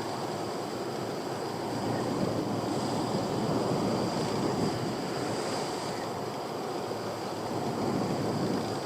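Sea water washing around a small boat, with wind buffeting the microphone: a steady rushing with no distinct events.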